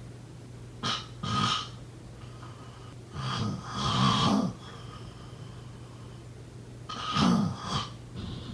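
A person snoring in their sleep: three snoring breaths about three seconds apart, each in two rasping parts, over a steady low hum.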